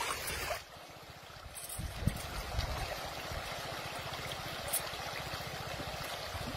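Shallow river water running and trickling over rocks, a steady rushing noise that drops in level a little over half a second in.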